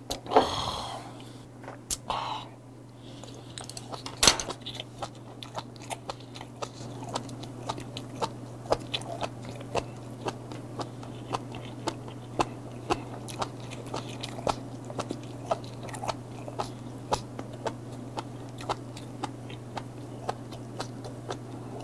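Close-miked chewing of roe-stuffed squid (komochi yariika): a steady run of crisp crunching clicks, about two a second, after a louder breathy sound at the start.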